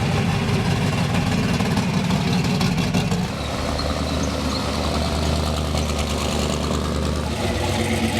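Car engine running at low speed, a steady low drone whose note changes about three seconds in.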